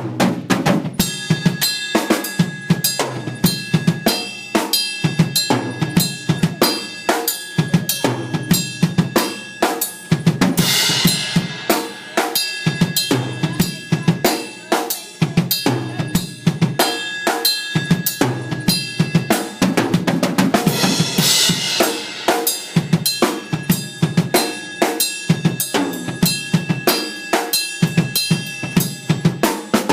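Drum kit played with sticks: a fast, busy run of snare and bass drum strikes, with cymbal crashes about every ten seconds.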